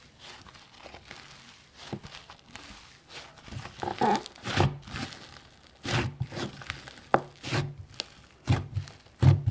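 Slime being pressed and worked by hand, giving irregular pops and clicks that come closer together in the second half.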